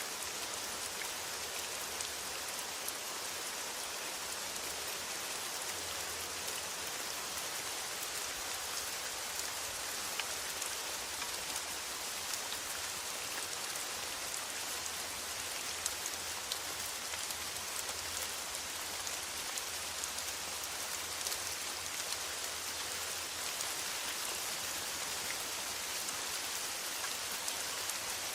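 Steady rain falling on a metal roof: an even hiss of rain with many small, sharp ticks of single drops striking the metal.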